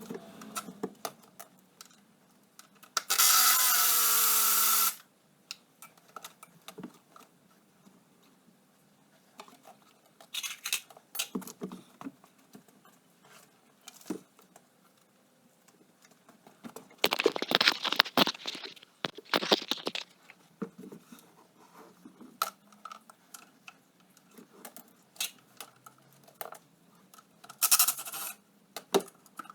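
Workshop teardown sounds: a power tool runs steadily for about two seconds near the start, then scattered metallic clicks, knocks and scraping of tools on parts, with a longer rasping scrape past the middle.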